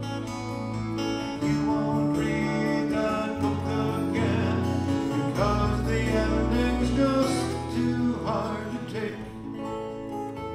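A live acoustic folk band plays an instrumental passage between verses: strummed acoustic guitars, a dobro played with a slide bar, and electric bass holding long low notes.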